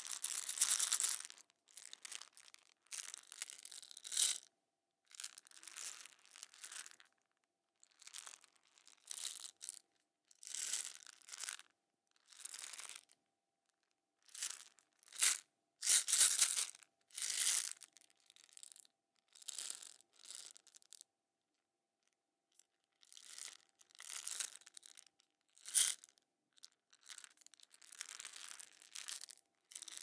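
Small marbles rattling inside a hard clear plastic container shaken by hand, in short bursts of shaking separated by brief pauses, with one longer pause about two-thirds of the way through.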